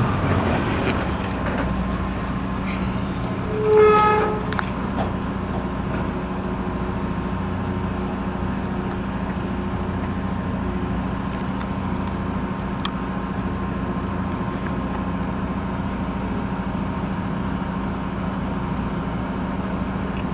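A steady mechanical hum with a short horn toot about four seconds in.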